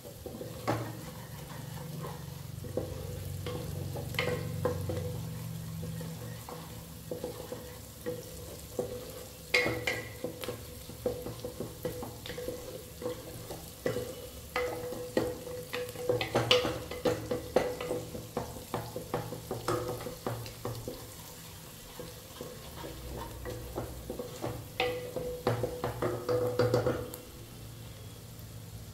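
A spoon knocking and scraping against a pan as food frying in oil is stirred, with a light sizzle underneath. The knocks come irregularly, busiest about halfway through, and stop shortly before the end.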